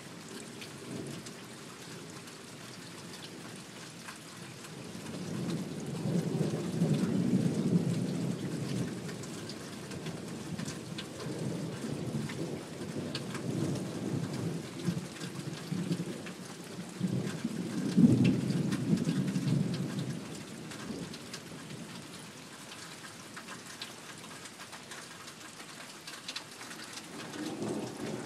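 Steady rain with rolling thunder from a thunderstorm: a long rumble builds about five seconds in, a sharper clap comes near eighteen seconds, and more rumbling rises near the end.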